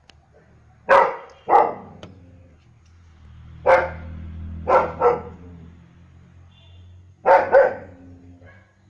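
German shepherd barking: seven short barks, mostly in quick pairs, with pauses of one to two seconds between the groups.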